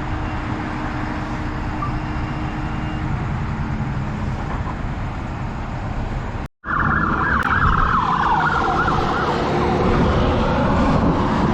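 A heavy engine running steadily. After a short break about halfway through, a loud high whine joins it and slides down in pitch.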